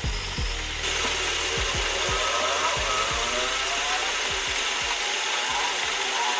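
A power tool running in a metalworking shop. A high steady whine cuts off abruptly about half a second in, leaving a lower, even machining noise with irregular knocks.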